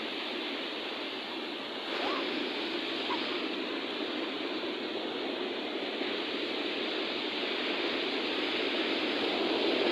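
Ocean surf washing steadily onto a beach, a little louder from about two seconds in.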